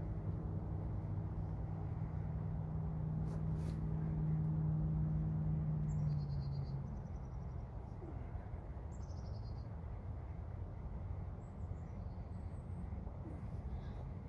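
A steady low hum, like a distant engine, fades out about six to seven seconds in over a constant outdoor rush. A few short series of high bird chirps follow in the second half.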